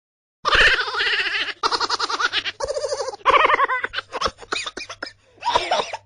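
High-pitched giggling laughter in several long bursts, its pitch wavering quickly, breaking into short choppy laughs near the end.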